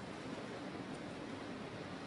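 Steady background hiss of room noise with faint rustling; no distinct event stands out.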